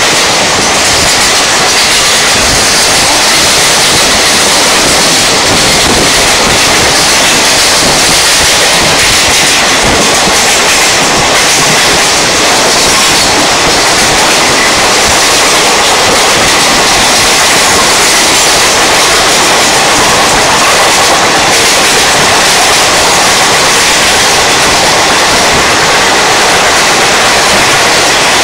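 Mumbai suburban electric multiple unit running at about 95–100 km/h: a loud, steady rush of wind and wheel-on-rail noise. It is mixed with the running of a long-distance express train on the parallel track alongside.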